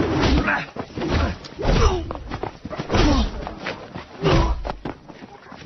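Movie fistfight: a series of heavy punch and body-blow impacts about a second apart, mixed with men's grunts and short shouts.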